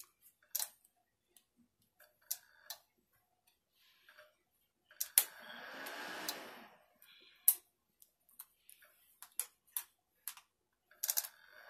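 Light plastic clicks and taps as nail swatch sticks are set down on the plastic base of a Makartt nail fan dryer. About five seconds in, the dryer's fan blows for about a second and a half, set off by the hand in its sensor zone, then stops.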